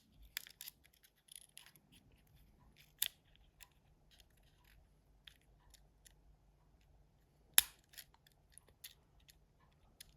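Faint scattered ticks and scrapes of small plastic and metal Nokia N73 mobile-phone parts being handled and fitted together, with two sharper clicks, one about three seconds in and a louder one a little after seven seconds.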